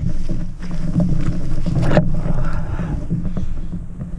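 Loud, muffled rubbing and scuffing of clothing against the camera's microphone, with brush swishing against it, while a canoe is carried through waist-high marsh shrubs.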